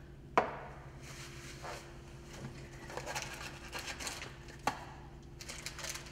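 Paper towel rustling and scrunching as it is torn from a roll and handled, with two sharp knocks of small items on a workbench, one about half a second in and one near five seconds in.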